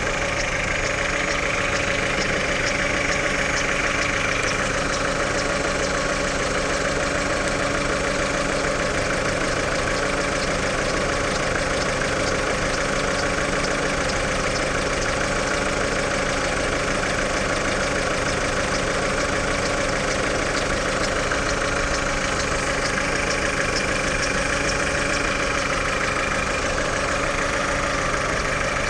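Chevrolet Lacetti engine idling during warm-up, steady, with an extraneous noise of fine rapid ticking over the running. The owner hears it only on a cold engine, at about 60–75 °C coolant, and it dies away once the engine is warm.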